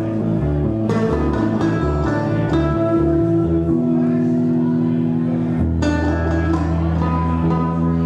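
A rock band playing live, with a stepping bass line that settles into long held notes about halfway through.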